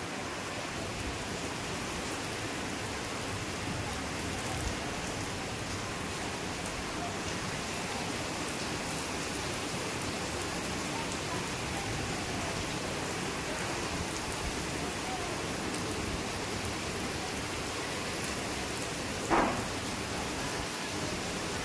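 Heavy rain falling steadily, with one brief louder sound near the end.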